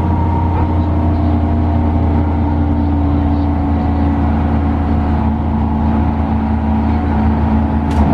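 Front-engined diesel coach heard from inside the cabin while cruising: a steady engine drone with road noise. There is a sharp click near the end.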